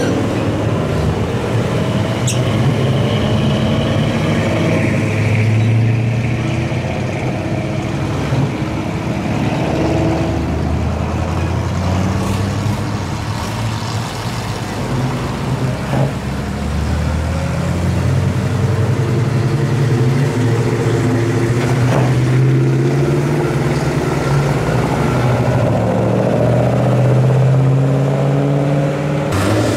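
Classic cars and trucks, among them a 1956 Chevrolet, a mid-1950s Chevrolet pickup and a Chevelle Malibu, driving past one after another. Their engine notes rise and fall as each one pulls away.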